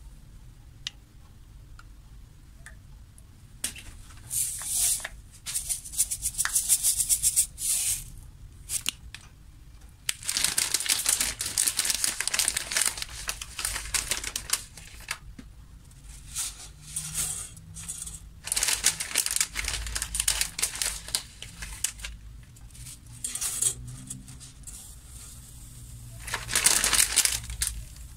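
Kitchen handling sounds: several bursts of dry rattling and crinkling, a few seconds each, as seasoning and spaghetti go into a pot of water, over a low steady hum.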